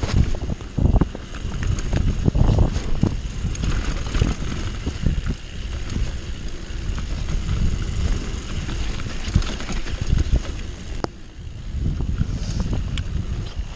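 Mountain bike descending a dirt singletrack: tyre noise on the dirt, the bike rattling over bumps with frequent knocks, and wind buffeting a body- or helmet-mounted camera's microphone. It eases off briefly about eleven seconds in.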